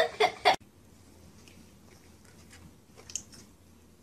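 A toy electronic keyboard sounding a few notes as a dog paws at its keys, cut off abruptly about half a second in. Then only faint hiss with a few soft clicks about three seconds in.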